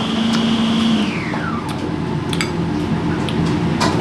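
A small electric motor's high whine, with a lower hum beneath it, winds down steeply in pitch and fades from about a second in, as a motor does when switched off and spinning down. A few light clicks follow.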